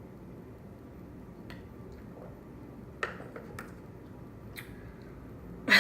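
A few scattered light clicks and crackles of food and its takeout box being handled during eating, with a louder sharp sound near the end.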